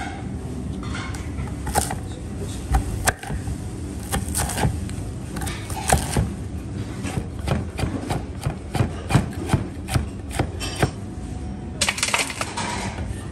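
A large knife chops through a block of raw fat on a wooden cutting board, the blade knocking the board in irregular strokes about two a second. Near the end, the chopped fat is dropped into a stainless steel bowl. A steady low hum runs underneath.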